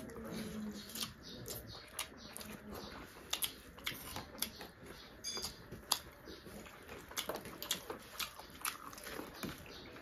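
Close-up mouth sounds of two people eating rice and curry with their hands: chewing and wet lip smacks, heard as many small irregular clicks.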